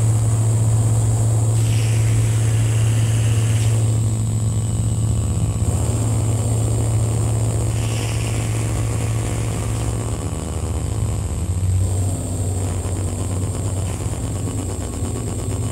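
Live electronic noise music: a loud, steady low hum under dense noise and a thin, steady high whine, its texture shifting every few seconds.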